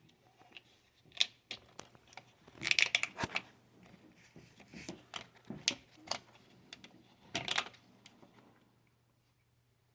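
A cable and plastic tubing being handled and fed through a cart frame: scattered clicks, rustles and scrapes in short bursts, loudest around three seconds in and again near the end, then it goes quiet.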